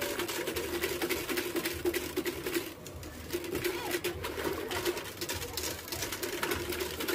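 Wire whisk beating a milky liquid in a stainless steel bowl: rapid, irregular clicks and scrapes of the tines against the metal, with sloshing. A low, wavering drone runs underneath.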